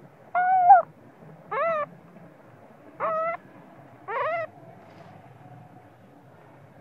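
Baby macaque crying in four short, high whimpering calls, some rising at the start, a second or so apart. It is the fussy crying of a sleepy infant at its mother's breast.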